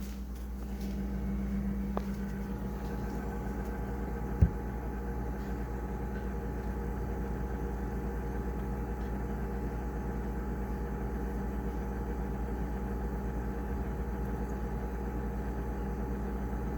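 Frigidaire refrigerator's compressor running just after start-up, a steady low hum with a few fixed tones above it. One sharp click about four and a half seconds in.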